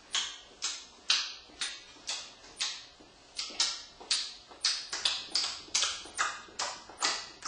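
A man smacking his moistened lips over and over, a string of short wet smacks at about two a second that speed up to about three a second in the second half.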